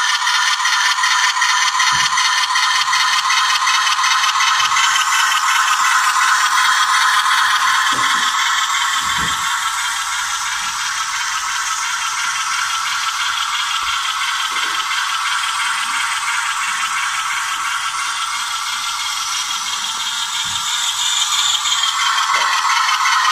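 Bachmann HO-scale Santa Fe diesel locomotive model running on sectional track, giving a steady high-pitched whirring rattle with a few faint clicks. The sound grows quieter as it moves away and louder again near the end as it comes back close.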